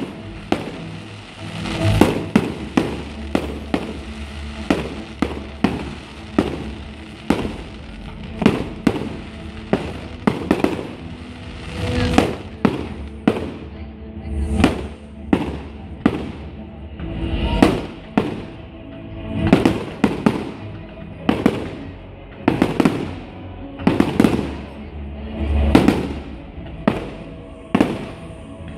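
Fireworks display: a continuous run of aerial shells bursting, sharp bangs about one to two a second, some in quick clusters with crackle and echoing tails. Music plays faintly underneath.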